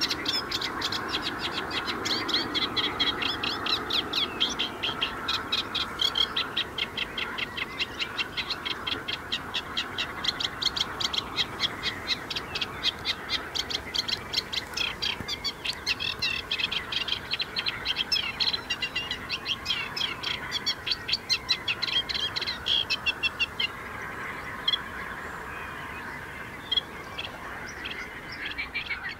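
Eurasian reed warbler singing: a long, rapid, chattering run of repeated notes that stops about 24 seconds in, over a steady haze of distant background sound.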